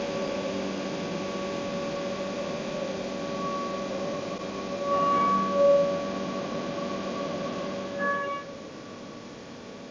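Felder Format4 Profit H08 CNC router machinery running: a steady whine with a hum under it. It swells about halfway through and drops off a little near the end.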